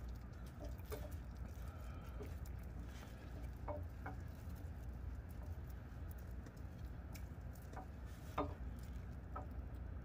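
Faint clinks and light scraping as a camshaft is eased by hand into the cam bearings of a Ford 5.0 V8 block, the loudest clink about eight seconds in, over a low steady rumble.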